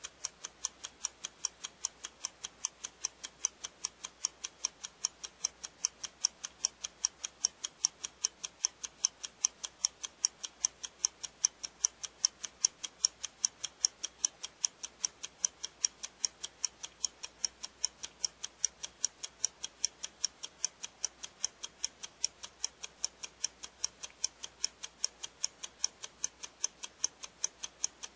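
Clock-ticking sound effect, a steady fast tick-tock, timing the one-minute task on an on-screen countdown.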